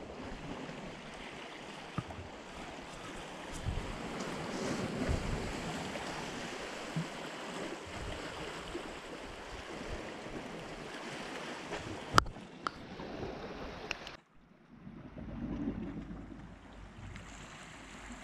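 Sea waves washing against the rocks of the shore. There is one sharp click about twelve seconds in, and the sound drops off suddenly about two seconds later to a fainter wash of the sea.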